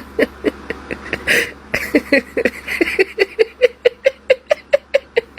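A rapid, even series of short pitched vocal sounds, about four to five a second, each sliding slightly in pitch.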